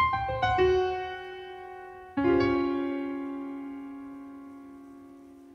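Background piano music: a quick run of notes at the start, then a chord struck about two seconds in that rings and slowly fades.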